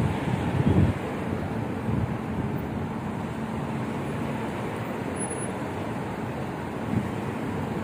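City street traffic noise: a steady wash of cars and a bus idling and moving, with a heavier low rumble in the first second.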